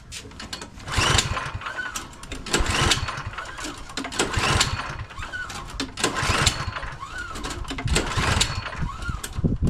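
Recoil starter of an MTD 179cc four-cycle snowblower engine pulled by hand about six times, roughly every one and a half seconds. Each pull spins the engine over with a brief whine, but it never catches. The engine was choked and primed, and the owner blames stale, clogged fuel in the carburetor.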